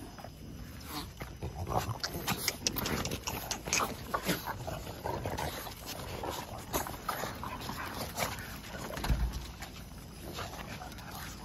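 A group of French bulldogs and bulldog puppies milling close around, giving short, scattered dog sounds. A low thump about nine seconds in.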